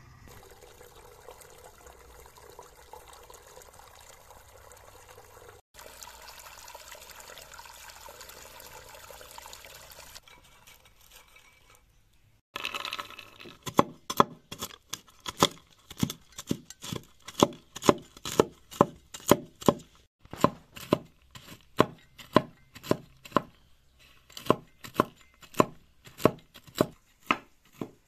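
A large knife chopping walnuts on a wooden board: sharp strikes about two to three a second, starting about halfway through, with a couple of brief pauses. Before the chopping there is only a faint steady hiss.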